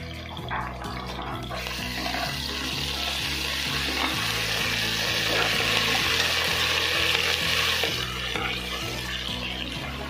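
Sliced onions and ginger-garlic paste sizzling in hot oil in a pressure cooker as they are stirred with a slotted metal ladle. The sizzle swells about a second and a half in and eases off near the end. Background music with steady bass notes plays underneath.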